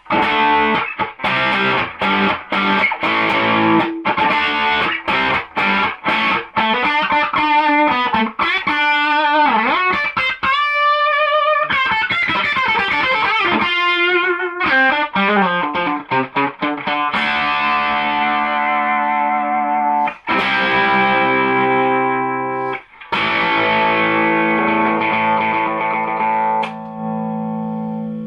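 Electric guitar played straight into a low-power single-ended EL84 valve amp with a 6N3P (6Н3П) preamp tube, at full volume on its 170 V plate supply. There are quick picked notes with a bent, wavering note about ten seconds in, then long ringing chords for the last ten seconds.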